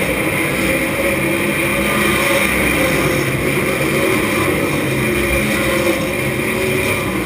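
Race car engine running at a fairly steady, moderate speed, heard from inside the open cockpit, its pitch wavering gently up and down without hard revving.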